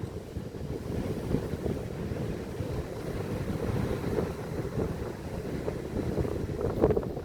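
Wind buffeting the microphone over rough surf washing on rocks, with a short louder bump near the end.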